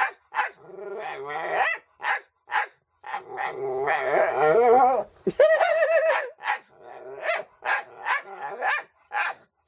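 Dog barking at a cat: long, wavering grumbling barks in the first half, then a run of short barks about two a second.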